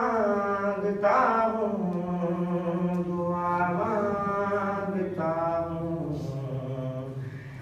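A man chanting a noha, a Shia mourning lament, in long drawn-out notes. Each of three or four phrases slides downward in pitch.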